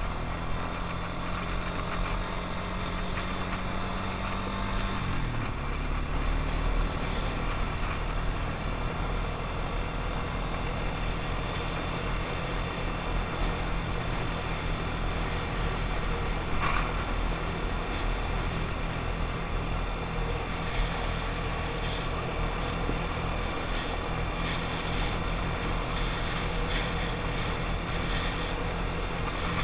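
ATV engine running while riding. Its note drops sharply about five seconds in, then holds steady under a rushing noise.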